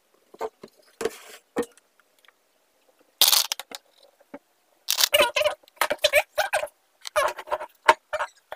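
Handling noise from the recording phone as it is picked up and moved: scattered clicks and knocks, a hissy scrape a little after three seconds, then a rattly run of rubbing and clattering over the last few seconds.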